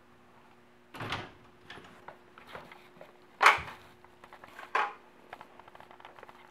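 A wooden louvered closet door being handled, with three knocks and clunks; the loudest comes about three and a half seconds in. Light knocks run between them.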